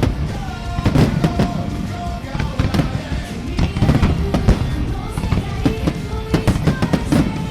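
Fireworks bursting and booming in quick succession, several bangs a second at times, over a pop-rock song with singing. The song is the soundtrack the fireworks display is set to.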